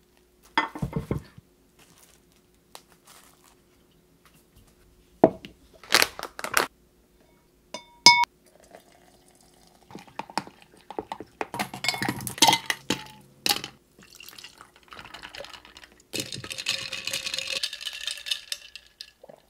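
A stirrer clinking and scraping against a glass tumbler as drink powder is stirred in to dissolve, with a short ringing clink of glass about eight seconds in and scattered knocks of dishes being handled. A few seconds of liquid-like hiss come near the end.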